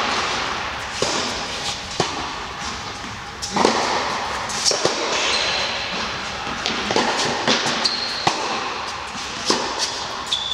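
Indoor tennis rally: racket strikes and ball bounces about once a second, each echoing in the large hall. Several short high squeaks of tennis shoes on the court surface come in the second half.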